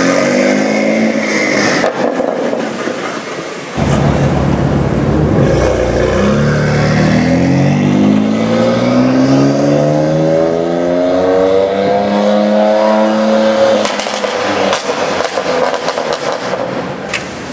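BMW M2 Competition's tuned twin-turbo straight-six with a Remus exhaust, revving loud: the note drops at first, jumps louder about four seconds in, then climbs in one long rising pull under hard acceleration. When it lets off, near the end, the exhaust pops and crackles.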